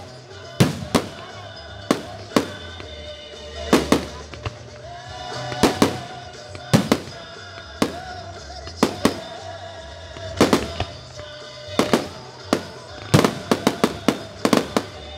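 Aerial fireworks going off in a string of sharp bangs, about one or two a second, with a rapid run of bangs near the end. Music plays underneath.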